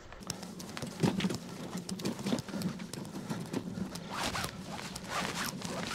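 A loaded wheelbarrow pushed across a grass field, with footsteps in the grass: an irregular run of quick clicks, knocks and rustling scrapes.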